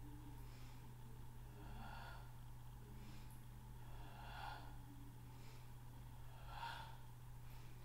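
A person exercising breathes audibly three times, one breath about every two and a half seconds, over a faint low steady hum.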